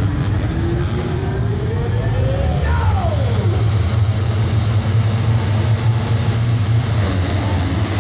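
A gate full of 250cc motocross bikes running at high revs on the start line, with one engine rising in pitch and another dropping back a few seconds in. Near the end the gate drops and the bikes launch.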